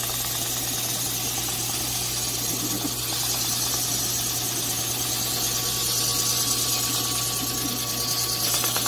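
Drill press running steadily with a 180-grit sanding disc on the bottom, sanding down a thin hardwood strip fed beneath it: a constant motor hum under an even sanding hiss.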